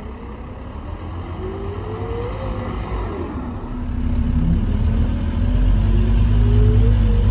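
Scania K230UB bus accelerating, its ZF automatic gearbox whining over a low engine drone that grows louder. The whine rises in pitch, drops sharply about three seconds in, and climbs again near the end.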